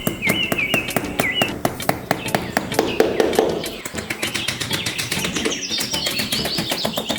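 Background music with a quick, steady beat, with short bird-like chirps over it in the first second or so.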